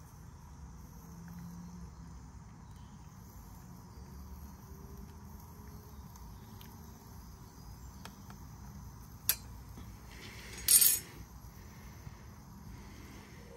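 Steady high-pitched insect chirring in the background while a spoon stirs a drink in a mug. There is one sharp clink about nine seconds in, then a brief louder rustle a second later.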